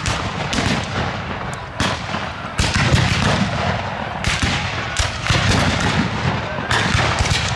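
Black-powder musket fire from re-enactors firing blanks: a ragged string of about ten shots at uneven spacing, some close together, with their echoes trailing off.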